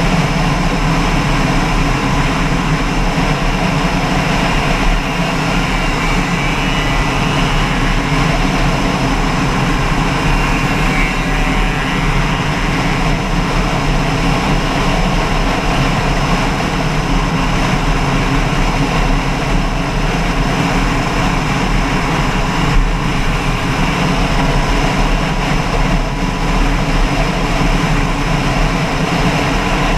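An engine running steadily at an even speed, a constant drone.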